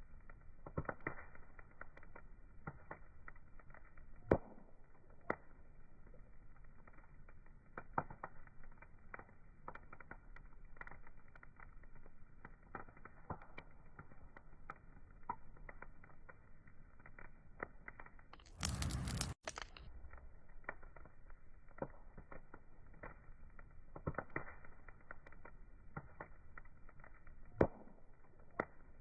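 Outdoor wood fire crackling, with irregular small clicks and an occasional sharper pop. About two-thirds of the way through, a loud burst of hiss lasts about a second and cuts off suddenly.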